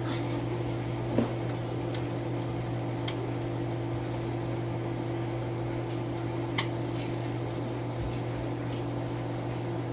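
Steady hum of a kitchen appliance, with a few light clicks and knocks scattered through it.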